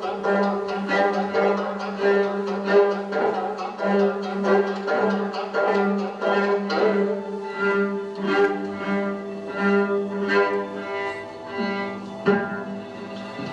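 Dance accompaniment music with bowed string instruments: a steady low drone note held throughout under a melody of many short, repeated note attacks.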